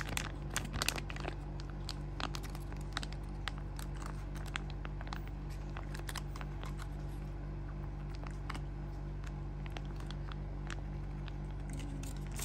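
Foil sauce pouch crinkling as it is squeezed and pressed to empty it, a dense run of crackles in the first second or so, then scattered single crinkles, over a steady low hum.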